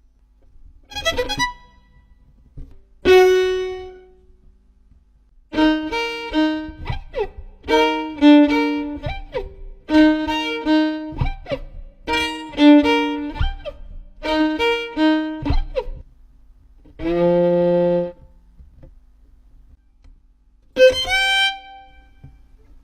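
A run of short instrumental sound effects. Two single decaying notes come first, then a short phrase of held string-instrument notes repeats six times about every two seconds. A brief buzzy held tone and one more decaying note follow near the end.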